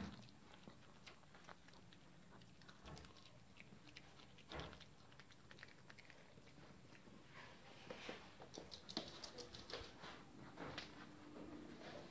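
A chihuahua chewing cabbage, faint scattered crunches and clicks that come thicker in the second half.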